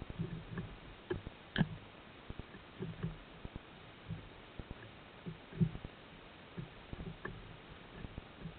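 Irregular sharp clicks and dull low knocks on an underwater camera housing as cunner bump and nose against the lens, over a faint steady hiss; the sharpest click comes about a second and a half in.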